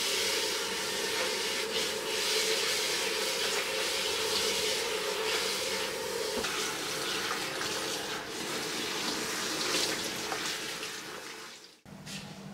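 Kitchen tap running steadily into the sink as gloved hands wash under the stream. It cuts off suddenly near the end.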